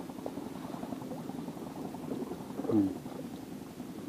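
Water bubbling and sloshing with a choppy, uneven texture. A short sound falling in pitch comes a little after halfway and is the loudest moment.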